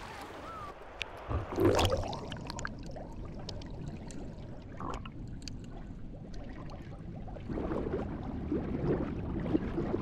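Sea water sloshing and splashing around haenyeo divers at the surface, with one louder splash just under two seconds in. A faint short whistle near the start fits a haenyeo's sumbisori, the whistling breath let out on surfacing.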